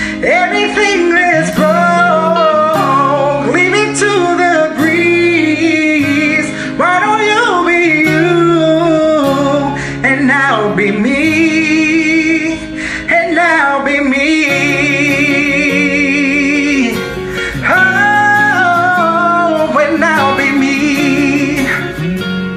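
Male voice singing freely over acoustic guitar accompaniment, with bending runs and held notes with vibrato but no clear lyrics.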